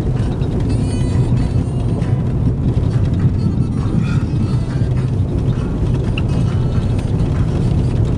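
Car driving at steady speed, a constant low rumble of engine and tyre noise heard from inside the cabin.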